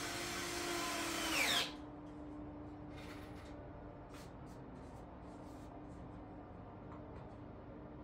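Power drill driving a screw, running for about a second and a half with a whine that climbs in pitch, then stopping. After that, a faint steady hum and a few light clicks.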